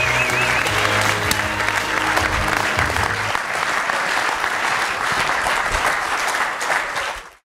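Audience applauding and cheering in a hall, over music with a strong bass line played over the speakers. The music stops about a third of the way through, leaving the applause, and everything cuts off just before the end.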